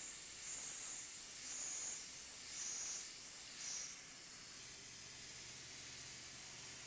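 Steady spray hiss from a CNC mill's coolant nozzle as a drill cuts through copper stock, swelling softly about once a second. About four seconds in the hiss thins and a low, even hum comes in.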